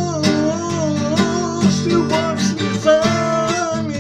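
A man singing long, wavering notes over a strummed acoustic guitar.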